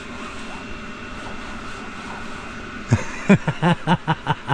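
Tent heater running with a steady whir. About three seconds in, a person's voice makes a quick run of short sounds, like humming or mumbling.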